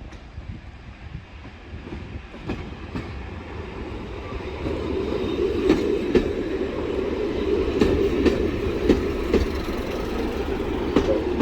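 Diesel train running past on the railway, its engine drone growing louder from about four seconds in, with the wheels clicking over the rail joints.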